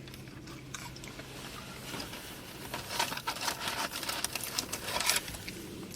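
Eating and food-handling noises: a run of small irregular clicks and crinkles, busier in the second half, over a low steady hum in the first two seconds.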